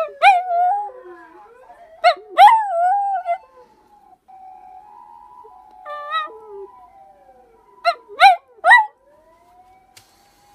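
A dog howls and yelps in reply to a fire-engine siren. The siren's wail slides down and up in the background while the dog gives two longer howls in the first three seconds, a shorter one around the middle, and three quick yelps near the end.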